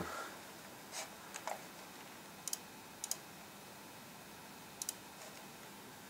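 Computer mouse button clicking three times, each click a quick double tick of press and release, about two and a half, three and almost five seconds in, with a couple of soft knocks before them.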